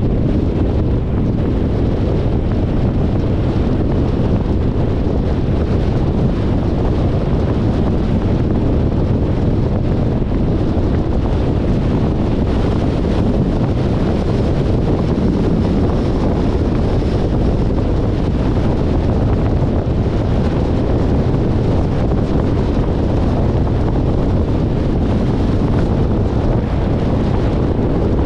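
Steady wind rushing over the microphone of a car-mounted camera, mixed with the road noise of a 2021 Jeep Compass driving at speed.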